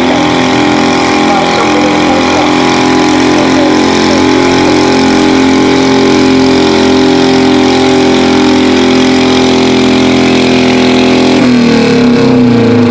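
Riding lawn mower engine running steadily and loud under load while pulling a weight sled. About eleven and a half seconds in, its note drops abruptly and wavers as the pull comes to an end.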